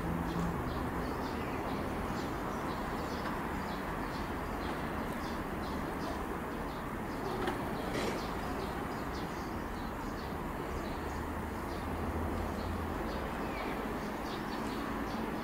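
Small birds chirping in many quick, short high notes throughout, over a steady background rumble, with a low dove coo now and then.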